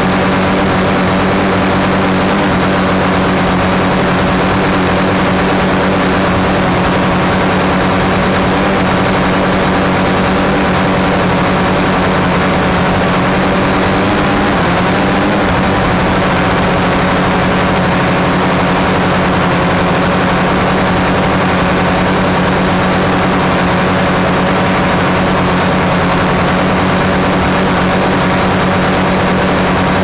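Flexify drone's electric motors and propellers droning steadily while the drone hovers, heard from the camera on the drone itself, with a brief shift in pitch about halfway through.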